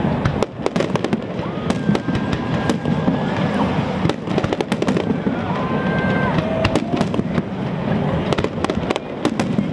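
Fireworks finale: a dense, unbroken run of aerial shells bursting, with loud bangs and crackling over a continuous low rumble.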